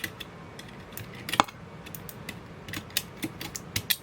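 Irregular small plastic clicks and snaps of keycaps being pried off and pressed back onto a Keychron K7 low-profile keyboard with blue switches, the loudest click about a second and a half in.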